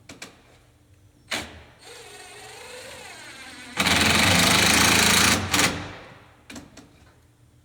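Power drill running: a few clicks and a short, quieter spin, then a loud run of about a second and a half drilling into wood, winding down near the end. It is pre-drilling or driving screws for a gazebo transom.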